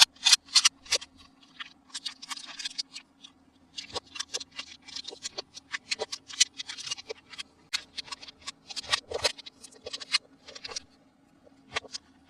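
Toy packaging being handled and opened: a fast, irregular run of plastic crackles and clicks with short pauses, thinning out near the end, over a faint steady hum.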